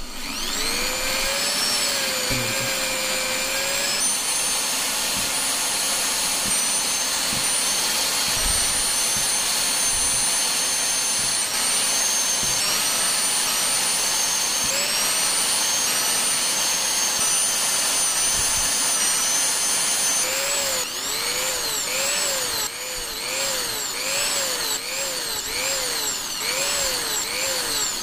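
Small electric PCB drill with a 1 mm bit running and drilling holes through a copper-clad circuit board, a steady high-pitched motor whine that spins up at the start. In the last quarter its pitch rises and falls in a regular pattern, about once a second.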